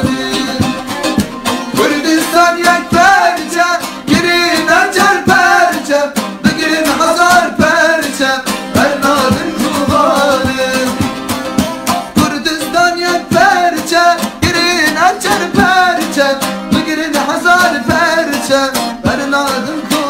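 Kurdish song: a voice singing a melody over plucked-string accompaniment.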